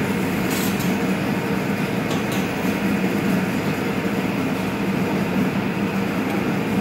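Pipe bending machine running with a steady hum, with two brief clicks about half a second and two seconds in.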